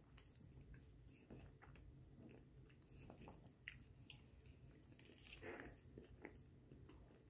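A person biting into and chewing raw chocolate chip cookie dough. The sound is faint, with irregular wet mouth smacks and small clicks, and a louder one a little before four seconds in.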